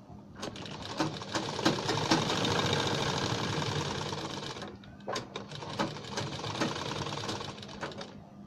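Black straight-stitch sewing machine stitching fabric and buckram along a curved neckline. It runs steadily for about four seconds, stops briefly, then runs again in shorter spurts.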